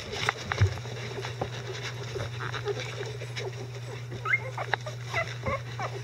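Newborn Icelandic Sheepdog puppies giving short high squeaks and whimpers, several in the later part. An adult dog licks and noses them clean, with wet licking clicks and rustling on the bedding, over a steady low hum.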